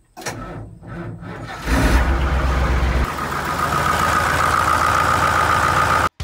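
A tractor engine being cranked over and catching about two seconds in, then running steadily with a high whine. It stops abruptly just before the end.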